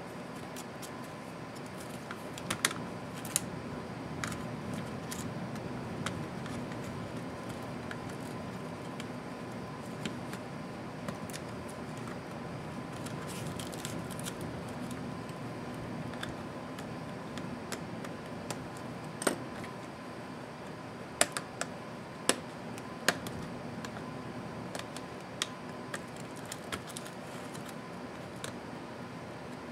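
Scattered small clicks and taps of a small screwdriver and fingers working on the plastic and metal internal parts of an opened laptop. The loudest few clicks come close together about two-thirds of the way through, over a steady background hiss with a faint steady tone.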